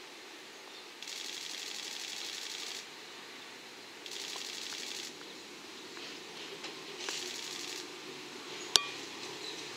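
KiYa 141 track-inspection diesel railcar approaching slowly, its engine a low drone that grows toward the end. Over it come three bursts of rapid high-pitched clicking, about two seconds, one second and under a second long, and one sharp click about three-quarters of the way through.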